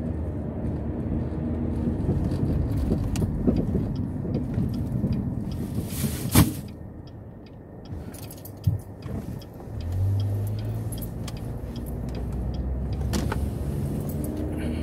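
Car cabin noise: low engine and road rumble, with one sharp click about six seconds in. The rumble drops for a few seconds, then a steady low engine hum picks up again about ten seconds in.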